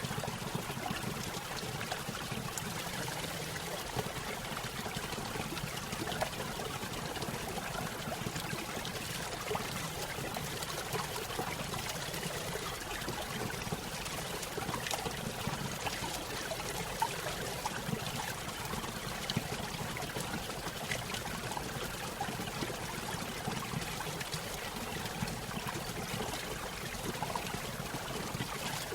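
A small stream splashing and trickling over a little waterfall, a steady, even rush of water with fine crackling splashes.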